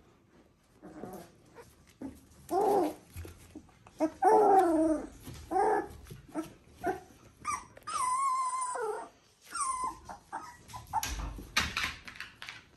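Three-week-old Border Collie puppies whining and yelping: a string of short, wavering cries, then a longer high whine about eight seconds in. There is a thump with some scuffling near the end.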